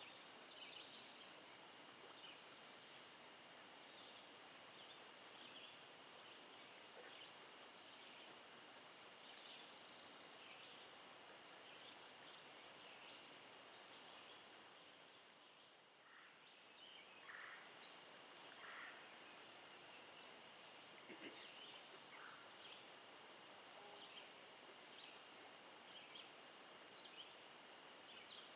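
Quiet wooded riverside ambience: faint bird calls, with a rising call about a second in and again about ten seconds in and scattered short chirps, over a steady faint high hum.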